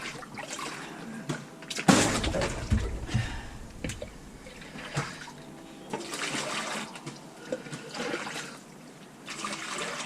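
Water pouring and splashing in a few surges, the loudest about two seconds in, as it is scooped or poured into a bucket.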